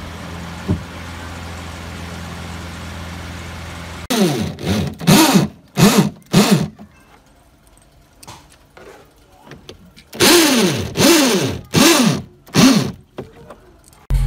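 A steady low hum, then from about four seconds in two groups of about four loud, short electronic sounds, each a quick falling pitch sweep.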